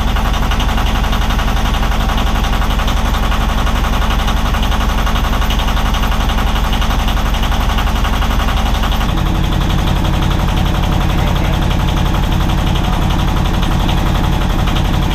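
Yanmar 2QM15 two-cylinder marine diesel running, heard close up through the open engine hatch. It gives a steady, rapid knocking rhythm, and its note shifts about nine seconds in.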